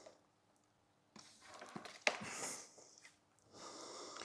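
A person breathing, several soft breaths in and out, with a sharper one about two seconds in.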